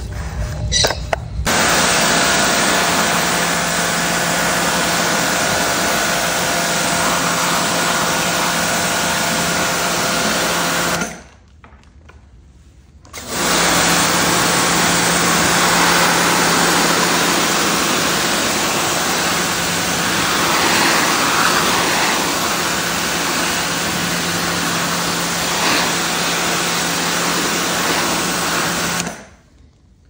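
Pressure washer running and spraying water onto plastic fan grilles, its motor humming steadily under the hiss of the jet. It stops for about two seconds near the middle, then runs again and cuts off just before the end. Briefly at the start, a sponge scrubs a plastic fan housing.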